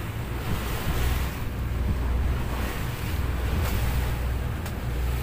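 Speedboat under way: steady low drone of its engine, with water rushing along the hull and wind buffeting the microphone.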